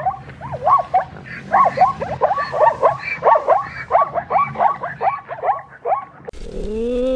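An animal giving a rapid series of short calls, each rising and falling in pitch, about three a second; they stop about six seconds in and a different, steadier drawn-out call starts near the end.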